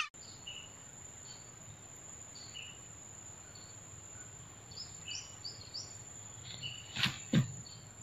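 A steady high-pitched insect drone with scattered short bird chirps, and two brief knocks or rustles about seven seconds in.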